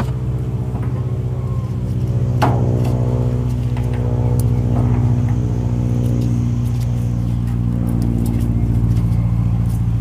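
Steady low mechanical hum of a running machine, with a single sharp metallic click about two and a half seconds in as the valve cap is worked tight.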